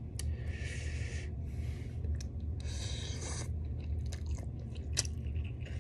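A man slurping noodles in two long sucking draws, then chewing with small wet clicks, over a steady low hum.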